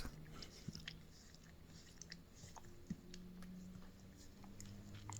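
Near silence: quiet room tone with a few faint scattered clicks and a faint low hum.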